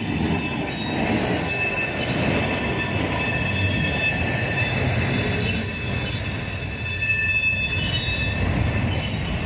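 Freight train cars (tank cars and a covered hopper) rolling steadily past at close range: wheels rumbling over the rails, with thin high-pitched flange squeals coming and going.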